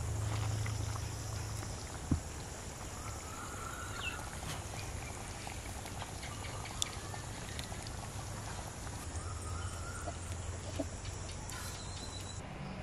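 Fish curry simmering in a clay pot over a wood fire, with a few sharp crackles from the fire. Bird calls come twice in the background, and a low steady hum runs underneath.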